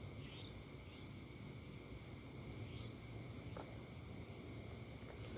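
Night insects, crickets, keeping up a steady high-pitched trill, with a few short, faint high chirps scattered through it that a camper takes for a bird calling.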